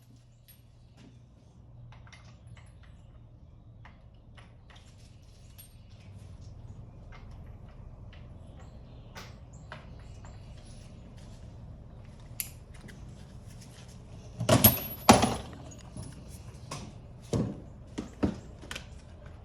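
Hand tools and metal parts clinking and tapping during work on a dirt bike's front end, with two loud metallic knocks close together about three-quarters of the way through and a few sharper taps after them, over a steady low hum.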